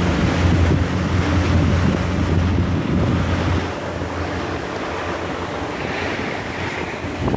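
Motorboat under way: a low steady engine drone with wind buffeting the microphone and water rushing past the hull. The engine drone grows weaker a little under halfway through.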